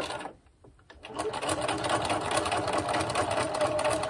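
Domestic sewing machine doing free-motion stitching with the feed dogs dropped. It stops briefly just after the start, starts again about a second in, then runs at a fast, even stitch rate with a steady motor whine.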